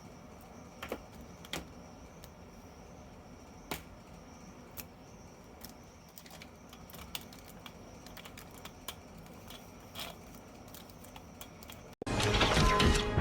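Scattered light clicks and taps over a quiet background, typical of plastic toy packaging or figure parts being handled. About twelve seconds in it cuts abruptly to loud music with crashing sounds.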